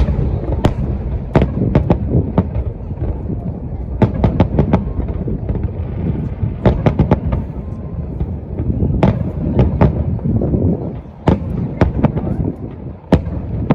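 Large aerial fireworks display: shells bursting in rapid succession, many sharp cracks and bangs over a continuous low rumble of booms.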